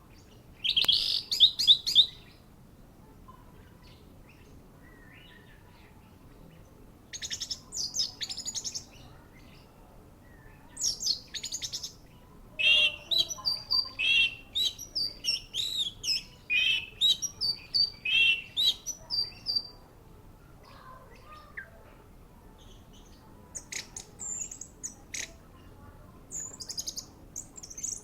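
Orange-headed thrush (anis merah) singing in bursts of fast, varied warbling phrases. The longest unbroken stretch of song runs through the middle, and thinner, higher notes come near the end.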